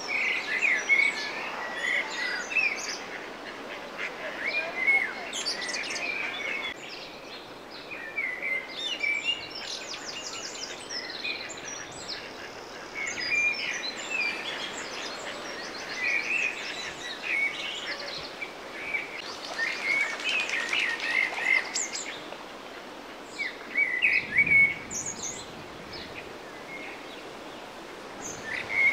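Mallard ducklings peeping in repeated bursts of short, high chirps, mixed with quick trills of small songbirds higher in pitch.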